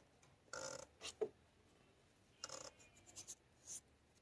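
Faint, irregular scraping and rubbing, with a sharp click about a second in: hands working on the BMW N20 engine's oil filter housing and its parts.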